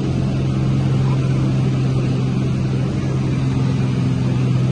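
Steady drone of a single-engine light airplane's engine and propeller in flight, heard from inside the cabin.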